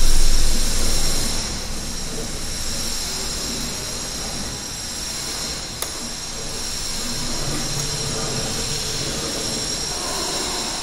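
Steady hiss of room noise, with a low rumble in the first second or so and a single sharp click about halfway through.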